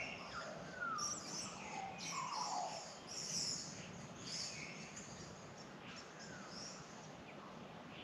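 Australian magpies singing, with fluty, gliding notes in the first three seconds, over many short high chirps of smaller birds that thin out towards the end.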